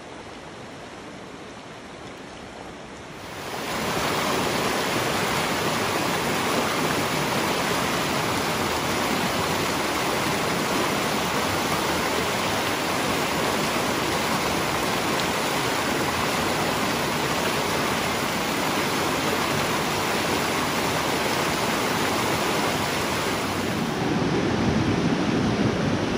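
Steady rush of a fast mountain river over rocks. It jumps louder about three seconds in, and turns heavier and lower about two seconds before the end.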